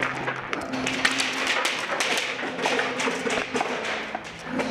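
Airsoft gunfire in an indoor arena: a rapid, irregular clatter of sharp cracks and taps, several a second.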